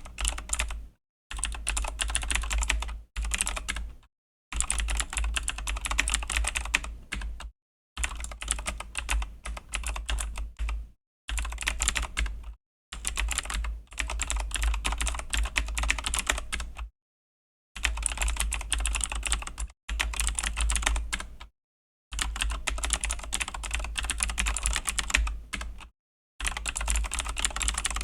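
Fast typing on a Razer BlackWidow V3 mechanical keyboard with Razer Green clicky switches: a dense clatter of key clicks in runs of one to three seconds, broken by short pauses.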